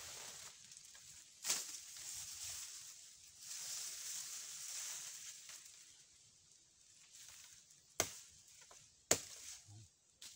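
Bolo knife (itak) blade chopping into a palm trunk: a sharp chop about 1.5 s in, two more near the end and a lighter one at the very end, over a rustling hiss.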